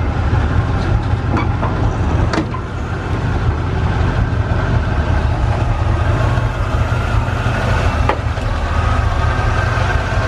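A 1976 Chevy C50 truck's 350 small-block V8 idling steadily, fed by an Edelbrock 750 carburettor that is not yet tuned in. A few faint knocks are heard over it.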